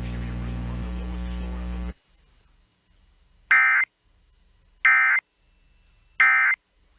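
NOAA Weather Radio EAS transmission: a steady buzz for about two seconds, then three short bursts of digital data tones about 1.3 s apart. These are the SAME end-of-message code that closes the warning broadcast.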